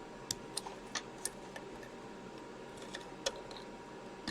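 Light, sharp clicks as a chip-removal tool gently works a 68040 CPU loose from its socket on a Blizzard 1240 accelerator card. There are about five quick ticks in the first second and a half and one more a little past three seconds, over a faint steady hiss.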